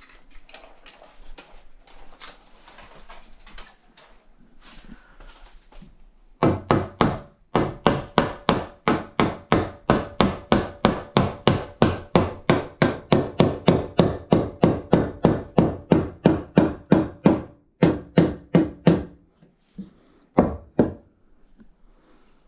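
Hammer striking wooden framing lumber, knocking a framing member into place in a wall opening: a long, steady run of blows, about three or four a second, lasting some twelve seconds, then a short pause and two last blows. Faint clicks and handling noise come before the hammering starts.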